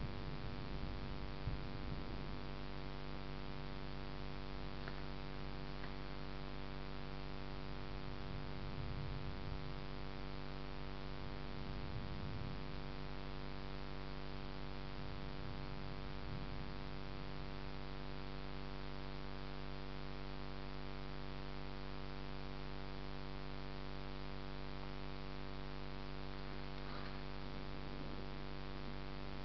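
Steady electrical hum, a stack of many even tones that does not change, with a faint low rumble of thunder dying away in the first second or two.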